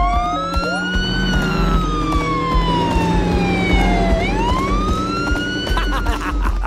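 Cartoon police car siren wailing, climbing, then sinking slowly for about three seconds and climbing again, over background music with a beat.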